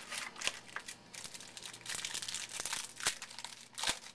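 Trading card pack wrappers crinkling and rustling as packs are handled and opened, with a couple of sharper clicks about three and four seconds in.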